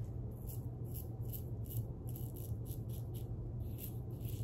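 Carbon CX safety razor with a Nacet blade scraping through lathered stubble in short, quick strokes, about three a second.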